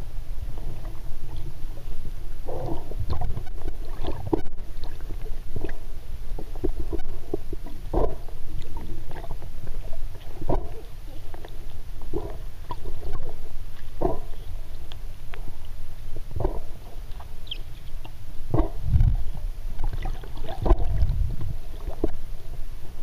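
Muffled underwater sound from a submerged camera: a low rumble of moving water with irregular soft knocks and splashes, one or two a second, and heavier surges about 19 and 21 seconds in.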